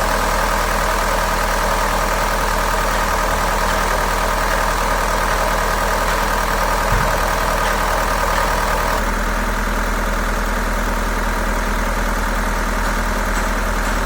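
A four-cylinder diesel engine idling unevenly with a misfire, its idle speed held raised. A fault code later ties the misfire to the number 4 cylinder injector. The tone shifts about nine seconds in.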